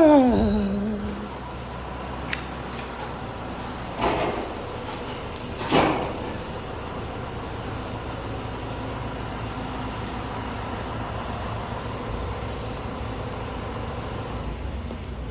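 Tractor engine running steadily at low speed, with a loud falling squeal at the start and two sharp metallic clunks about four and six seconds in.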